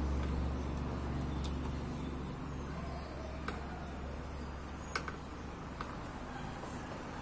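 Low, steady rumble of a motor vehicle engine running nearby, fading after about two seconds. A few light metallic clicks and taps come from clutch parts being handled on the open motorcycle engine case.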